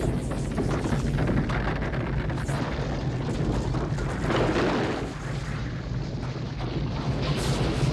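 Movie sound effects: a continuous heavy rumbling with booms, swelling into a louder surge about four seconds in.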